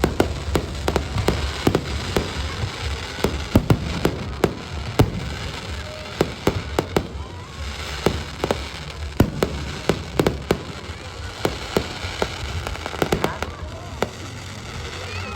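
Fireworks going off in quick, irregular succession: many sharp bangs and cracks, several close together, over a constant low rumble of more distant bursts.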